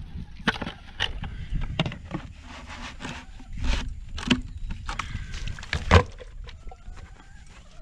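Plastic knocks, clicks and scrapes as a poultry waterer is handled: the red base is fitted onto the white jug and the jug is turned over, with the sharpest knock about six seconds in. Wind rumbles on the microphone underneath.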